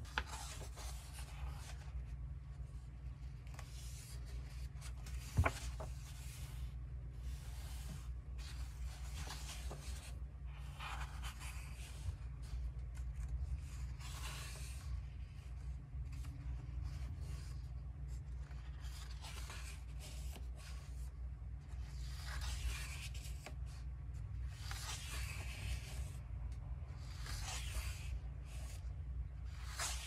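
Pages of a hardcover photobook being turned and smoothed by cotton-gloved hands: intermittent soft paper rustling and sliding, with one sharp tap about five seconds in, over a steady low hum.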